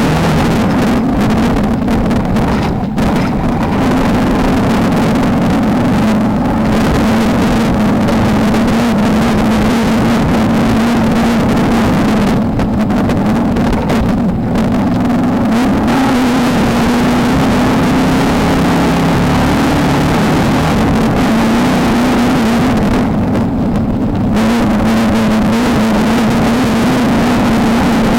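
Off-road race car engine running hard at a steady pitch with a harsh, rough edge, the upper part of the sound thinning out briefly several times.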